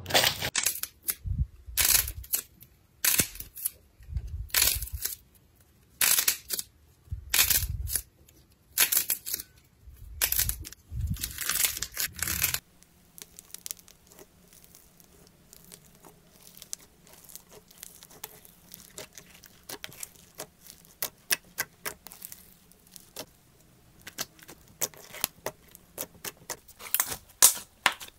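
Hands working slime. First a clear slime is stretched and pressed, giving loud crackling squelches about once a second. Then, about halfway through, a hand pressing foam-bead slime gives softer, rapid fine crackles, which grow busier near the end.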